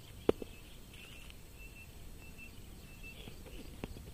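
A single sharp crack of a cricket bat striking a hard tennis ball about a third of a second in, followed by a fainter click. Faint high chirping runs underneath.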